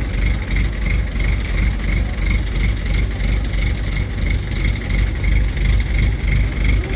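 Heavy diesel machinery running steadily with a low rumble. Over it, a high-pitched squeal pulses about twice a second.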